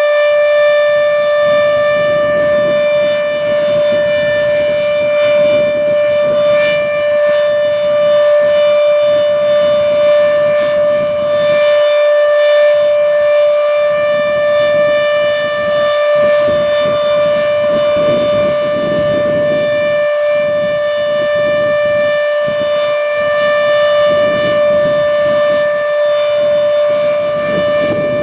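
H.O.R. Siro-Drone mechanical warning siren sounding a loud, steady, unchanging tone on its Full Alert cycle.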